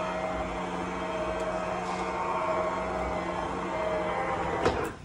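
Electric power awning motor running steadily with an even hum as it rolls the awning back in, then cutting off with a knock near the end as the awning closes into its case.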